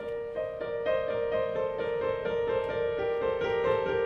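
Piano music: a quick, steady run of notes over a held tone, part of a waltz-like film theme.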